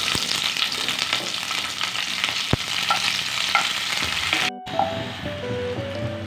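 Food sizzling as it fries in a pan, with stirring, for about four and a half seconds. It then cuts off suddenly and gives way to background music with a simple stepped melody.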